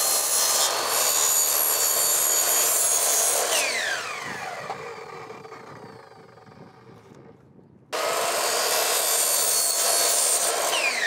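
Miter saw cutting through a plastic garage floor tile. About three and a half seconds in the blade is freed and the motor winds down with a falling whine. About eight seconds in it starts again abruptly for a second cut, and near the end it begins to wind down again.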